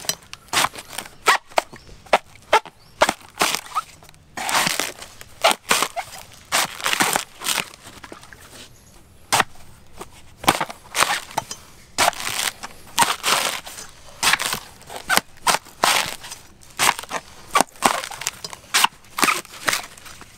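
A heavy knife chopping and shaving the husk off a coconut held in the hand: many sharp chops in quick runs, with a quieter pause about midway.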